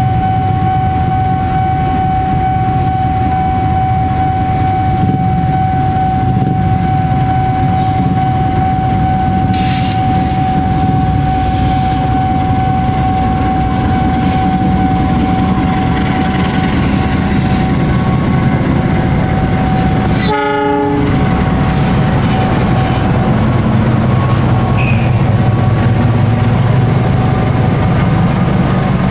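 KAI CC206 diesel-electric locomotives running past with their passenger trains: a deep, even engine rumble with a steady high whine over it. About two-thirds of the way through a cut brings a second locomotive passing close, its rumble growing a little louder toward the end.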